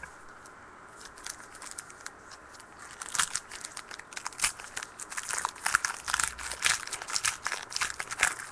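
Plastic trading-card pack wrapper being torn open and crinkled by hand: a few light crackles, then a dense run of sharp crinkling from about three seconds in.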